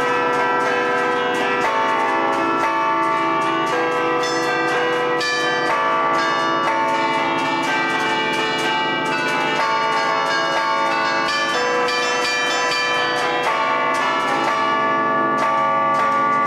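A chime of twelve tower bells played from a baton keyboard in the Italian allegrezza style. Rapid strokes, several a second, pick out a lively tune modelled on band music, and the ringing of each bell overlaps the next.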